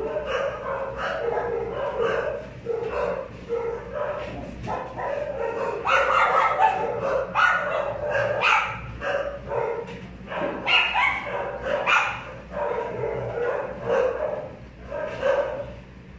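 A dog barking, yipping and whining over and over, with the calls loudest in the middle stretch.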